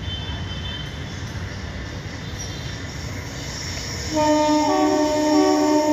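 Horn of an approaching Indian Railways locomotive, sounding a loud, steady chord of several notes that starts about four seconds in, over a low rumble from the approaching train.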